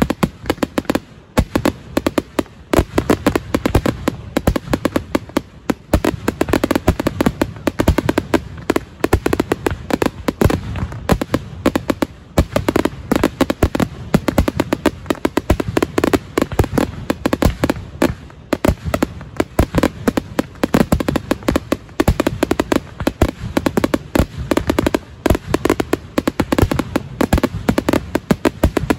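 Fireworks finale barrage: a dense, continuous run of firework bangs, several each second, overlapping with no real pause.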